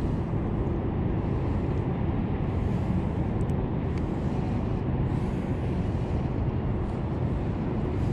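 A steady low rumble, with a few faint clicks about three and a half seconds in.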